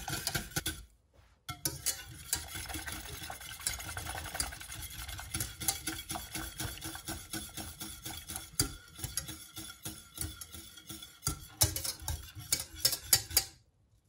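Wire balloon whisk beating milk with cocoa powder in a stainless steel saucepan, the wires clicking quickly and steadily against the pot. The sound drops out briefly about a second in and again near the end.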